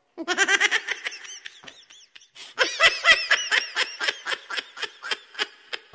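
High-pitched laughter in quick 'ha-ha' pulses: a short burst, a brief pause, then a longer run that trails off.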